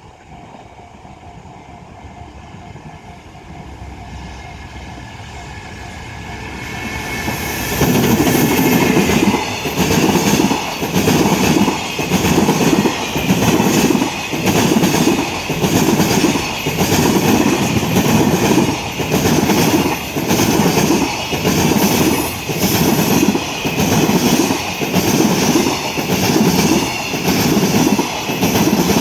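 JR freight train approaching, then its wagons' wheels clacking over a rail joint in a steady rhythm, about one clack every second and a quarter as the wagons roll past: the 'super joint' sound.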